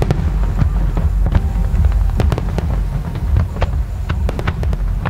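Aerial fireworks display: an irregular string of sharp bangs and crackles, several a second, over a continuous low rumble of bursting shells.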